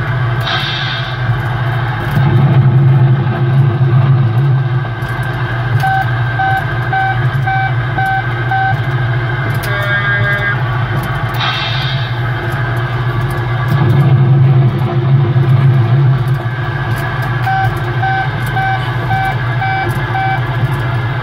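RG Mitchell 'Mitch the Dumper Truck' kiddie ride playing its looped soundtrack: guitar music over a low vehicle engine rumble that swells twice. Twice a run of six short beeps, about two a second, sounds over it, and the whole pattern repeats about every eleven seconds.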